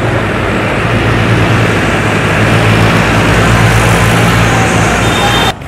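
Farm tractor's diesel engine running as the tractor drives past, a steady low engine note under road noise. It cuts off suddenly near the end.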